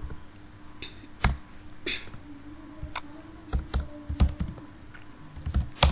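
Typing on a computer keyboard: a few scattered keystrokes at first, then quicker runs of key presses in the second half, the loudest just before the end.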